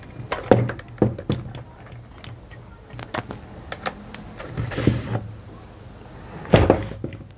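Handling noises from a Henry vacuum cleaner's motor being taken apart: small clicks as wire connectors are pulled off, then plastic knocks and scraping as the motor is lifted out of its plastic housing, with the loudest knock near the end.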